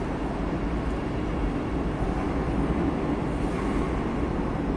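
Steady low rumbling background noise of an underground metro station, unchanging throughout.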